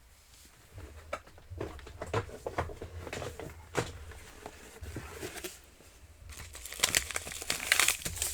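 Craft supplies being rummaged through and handled by hand: scattered light clicks, knocks and rustling, busier near the end.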